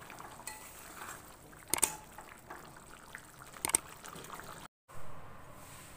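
Chicken curry bubbling in a metal wok as a spatula stirs it through the gravy, with two sharp clicks of the spatula against the pan about two seconds apart. The sound cuts off shortly before the end.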